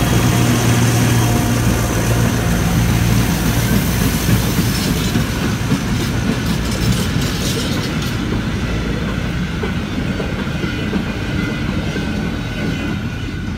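Freight train passing close by. The diesel locomotive's engine hum fades over the first few seconds as it moves away, then the freight wagons roll past with clickety-clack wheel clatter, slowly getting quieter.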